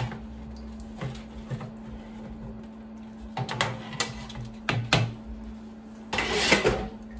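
Browned chicken and sliced sausage being scraped off a cutting board into a pot of tomato sauce: a few light knocks of a utensil against the board and pan, then a louder scrape near the end, over a steady hum.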